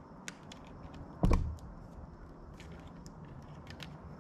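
Small clicks and taps of a 9-volt battery and its wire snap connector being handled at a garage door keypad's plastic battery compartment, with one louder knock about a second in.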